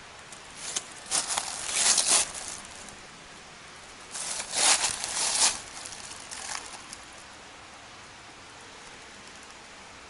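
Footsteps crunching through dry fallen leaves, in two spells of crackly rustling, the first about a second in and the second about four seconds in, over a steady faint hiss.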